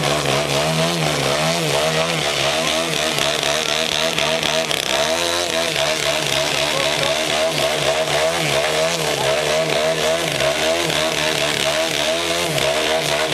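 Engine and propeller of a large aerobatic radio-control airplane hovering nose-up. The pitch keeps rising and falling as the throttle is worked to hold the hover.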